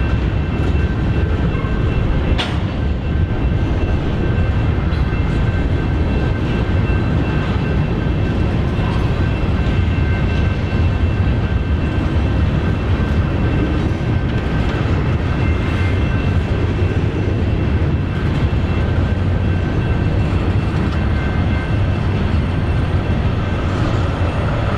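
Union Pacific freight cars rolling across a grade crossing, a loud steady rumble of wheels on the rails, with the crossing's warning bell ringing over it. A single sharp click comes about two and a half seconds in.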